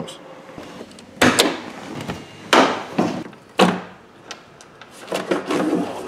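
Three sharp knocks or clunks about a second apart, each dying away quickly, then softer rattling handling noise near the end.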